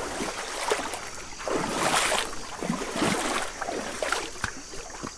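River water running, with irregular small splashes scattered through it.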